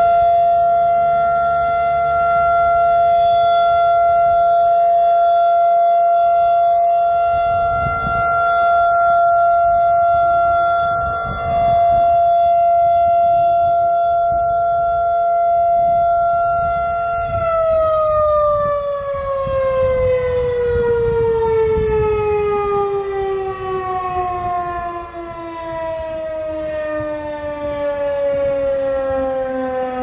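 Federal Signal 2001-SRNB rotating outdoor warning siren sounding its steady alert tone, the level swelling and dipping as the horn turns. About seventeen seconds in the tone stops holding and slides steadily down in pitch as the siren winds down at the end of the alert.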